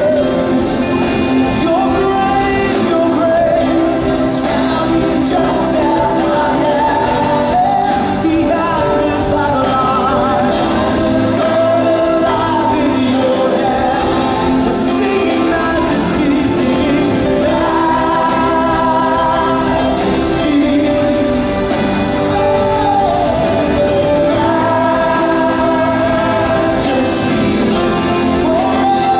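Worship band performing a contemporary praise song: singers over guitars and keyboard, continuous throughout.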